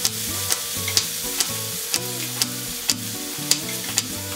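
Crinkle-cut knife chopping a carrot into rounds on a plastic cutting board, about two sharp chops a second, over a steady hiss and background music.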